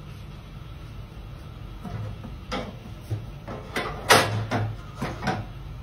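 A series of sharp knocks and clatters, the loudest about four seconds in, over a faint low hum.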